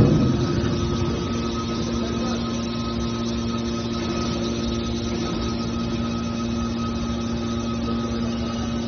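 Heavy hydraulic scrap-metal baler machinery running with a steady hum. A metal impact at the very start dies away over about a second.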